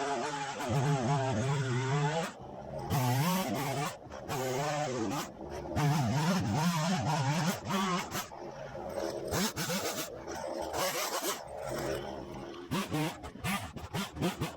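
Husqvarna chainsaw running from a cold start, its engine revving up and down repeatedly with brief drops in speed. It is being run cold to listen for a clue to its fault, and it sounds healthy.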